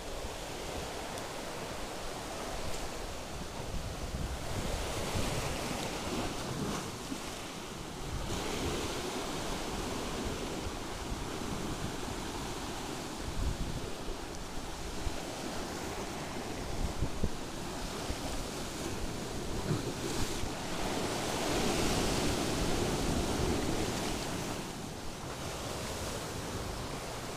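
Sea waves breaking and washing over shoreline rocks in repeated swells, with wind buffeting the microphone.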